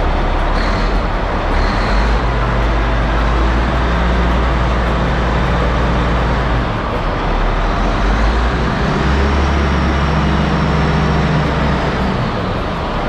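Caterpillar 627G scraper's diesel engine running loud, its low note shifting in pitch a few times as the engine speed changes. A faint high whine rises and holds for a few seconds past the middle.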